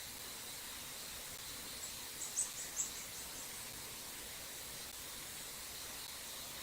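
Steady rushing hiss of a small stream, with a brief run of about seven high, thin bird notes about two seconds in.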